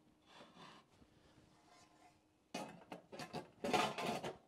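Cast iron pan scraping and rubbing against a wood-fired pizza oven as it is slid inside. There are several short strokes in the second half, and the last one, near the end, is the longest and loudest.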